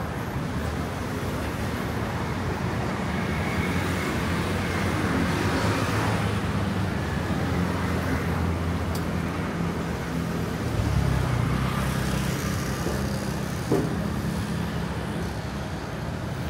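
Road traffic on a busy city street: car and scooter engines running and passing, with a steady low engine hum throughout. A single short click sounds near the end.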